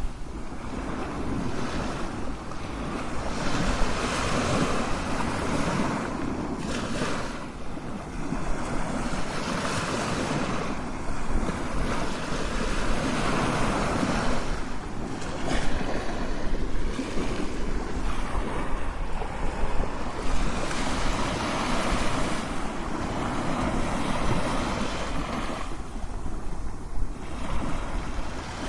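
Ocean waves crashing and washing onto shore, a continuous rushing surf that swells and ebbs every few seconds.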